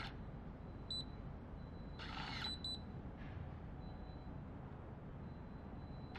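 Electronic smart lock's small bolt motor whirring for about half a second as it draws the latch back, with the lock's beeps: one short beep about a second in and two quick beeps just after the motor stops.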